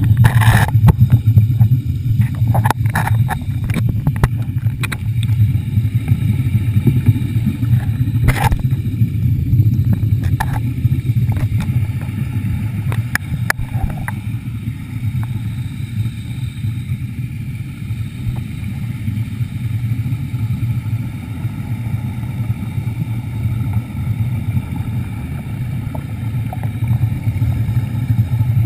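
Underwater scooter's motor running steadily with a low hum, with a few sharp clicks and knocks in the first half.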